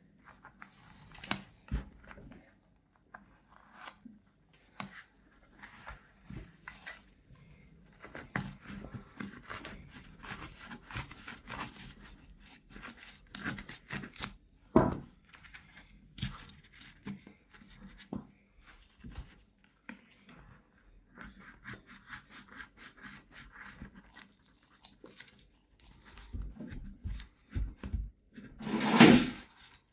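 Kitchen knife sawing and cutting through a running shoe's foam midsole, with irregular scraping, tearing and crunching strokes as the foam is cut and pulled apart. A louder burst comes near the end.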